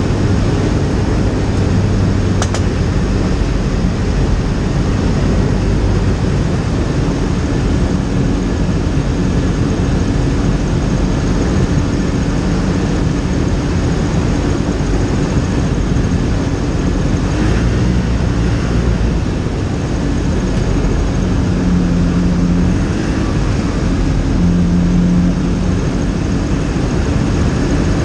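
Skyranger microlight's engine and propeller running steadily in cruise flight, heard from inside the cockpit over loud rushing air noise. The engine note shifts slightly up and down a few times in the second half.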